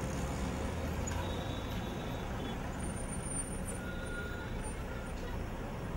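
Road traffic with a city bus's engine running close by, a steady low rumble, with a few faint short high squeaks in the middle.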